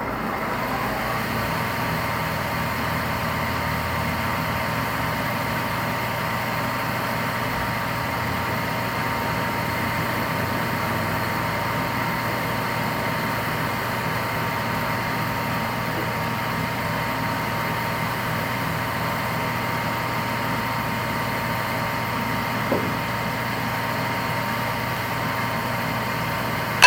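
Electric buffing machine for shoe repair, spinning up at the start and then running steadily as finished heels are buffed off.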